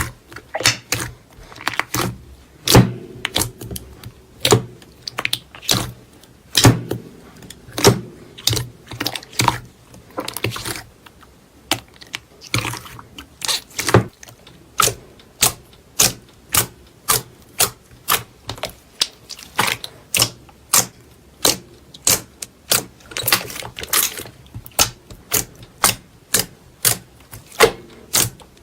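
Slime being squeezed and poked by hand, giving sharp, crisp clicking pops at about one to two a second.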